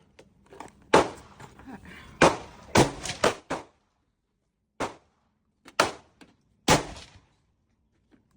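Gunshots on a shooting range: about nine sharp reports, a quick run of them between about two and three and a half seconds in, then single shots roughly a second apart.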